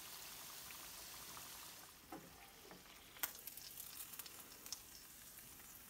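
Beef tikka pieces deep-frying in hot oil in a pan: a faint sizzle that drops lower after about two seconds. A few light clicks of metal tongs come in the second half.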